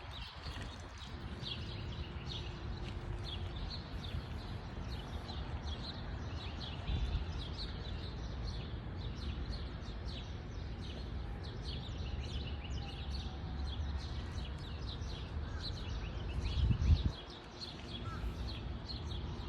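Small birds chirping in many short calls over a steady low rumble of wind on the microphone, with a louder gust near the end.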